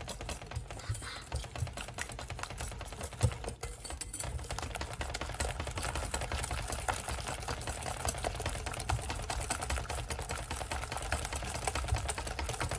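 Wire balloon whisk beating powdered sugar into a thick cream in a glass bowl, the metal wires ticking rapidly against the glass in a fast, steady rhythm, with an occasional louder knock.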